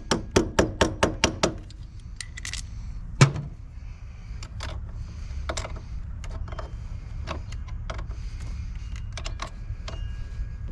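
A hammer tapping quickly and evenly on a battery terminal, about four or five light taps a second, stopping about a second and a half in. One heavier knock follows a little over three seconds in, then scattered metal clinks of tools being handled.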